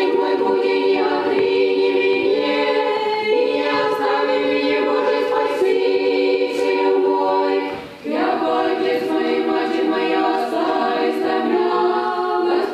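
Small Russian Orthodox parish choir singing a cappella in the old village style, holding sustained chords with harmonizing under-voices (podgoloski). The singing breaks for a breath about eight seconds in, then the next phrase begins.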